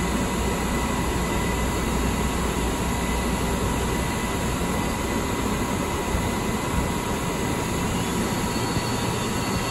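Light-rail car running slowly over track switches into a station, heard from inside the front cab: a steady rumble and rattle of wheels and running gear with a faint steady whine. The low rumble eases about four seconds in.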